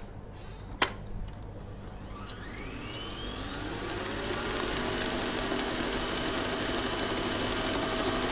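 Two sharp knocks under a second apart, then a stand mixer's motor starting up with a rising whine and settling into a steady run. It is creaming margarine and sugar in the metal bowl until pale and fluffy.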